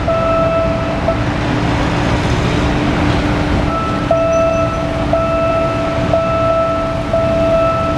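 Level-crossing warning alarm sounding a steady pitched tone that restarts about once a second, over a broad rumble of rail and road traffic. In the middle the rumble swells and drowns the alarm for a couple of seconds.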